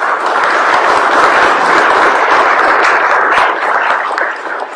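Applause from a large group, loud and even, tapering off near the end.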